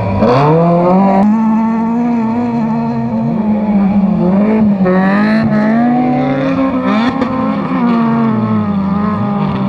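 Autocross race cars' engines revving hard on dirt, the pitch rising and falling with gear changes and throttle lifts. A car passes close at the start with a sharply falling pitch, and near the end the note dips low and climbs again.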